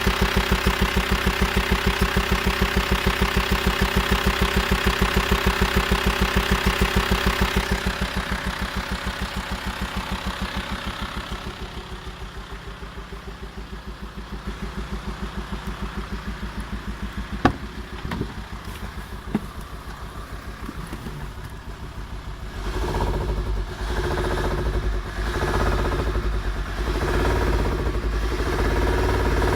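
VW Transporter T5 2.5 TDI five-cylinder diesel engine running with a rapid, even pulsing: the strange engine noise it has developed. The engine grows quieter, a few sharp knocks come near the middle, and a loud, uneven low rumble takes over for the last seven seconds.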